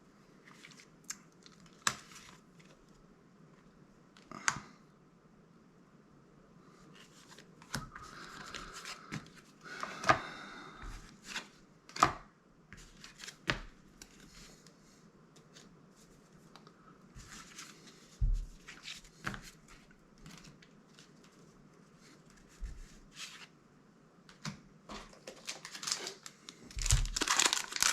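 Trading cards being handled and sorted: scattered soft clicks, taps and slides of card stock, with a louder crinkling of packaging wrapper starting near the end.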